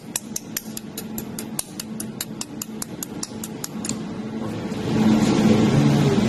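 Pulsed jewelry laser welder firing repeatedly at a metal plate, each pulse a sharp snap, about five a second. The snapping stops about four seconds in and a louder steady rumbling noise with a low hum takes over.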